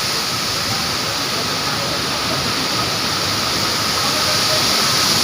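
Waterfall: a steady, unbroken rush of falling water, heavy in hiss.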